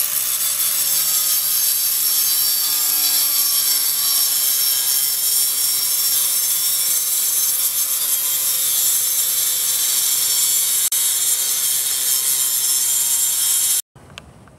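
Angle grinder cutting through the edge of a cured fiberglass laminate panel, trimming it to its marked outline: a loud, steady, high-pitched grinding hiss over the motor's whine, which stops abruptly near the end.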